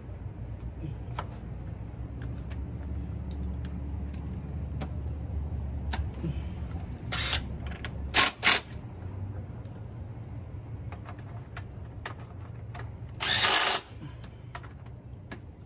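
Short bursts of a cordless power tool driving bolts on the underside of a Yamaha YFZ450 quad, most likely fastening the skid plate. There is one burst about seven seconds in, two quick ones about a second later, a longer half-second run near the end and another just as it ends. Light clicks and clanks of parts being handled come between them.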